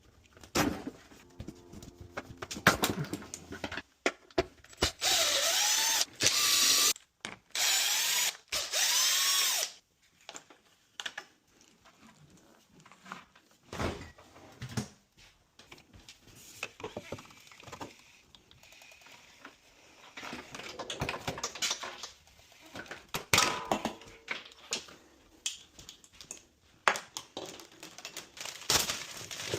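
Power drill running twice for about two seconds each, its pitch rising and falling as the speed changes, with clicks and knocks of parts being handled in between.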